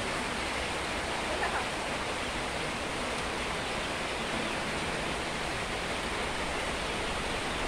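Steady rushing noise with a faint chirp from broiler chickens about a second and a half in.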